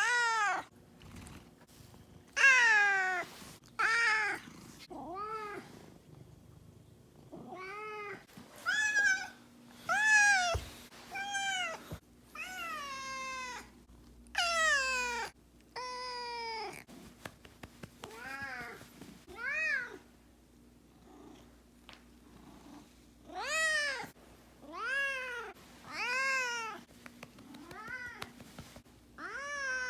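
Domestic cat yowling again and again, about twenty drawn-out siren-like calls that each rise and fall in pitch, with a couple of short pauses. These are the cries of an angry or sulking cat.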